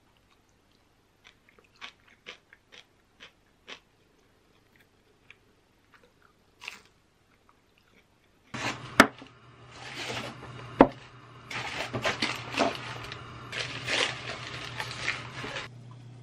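Faint crisp crunches of someone chewing fried shrimp. About halfway through, a switch to louder crumpling and rustling of newspaper as wrapped ceramic cups are unwrapped, with a couple of sharp knocks and a low steady hum behind it.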